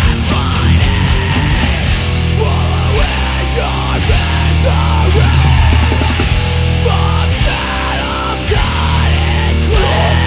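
Heavy metal band music: heavy sustained low notes, sliding pitched lines in the middle, and cymbal hits keeping a steady beat.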